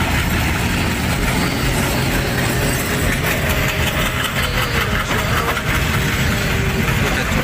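Passenger train passing at close range: its diesel locomotive goes by at the start, then the coaches roll past with a loud, steady noise of wheels on the rails.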